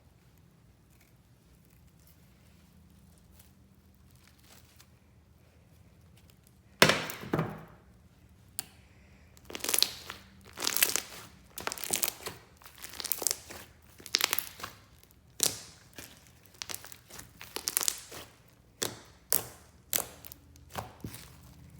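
Slime being pressed and squeezed by hand: more than a dozen short, sharp squishes at roughly one a second, starting after several seconds of quiet.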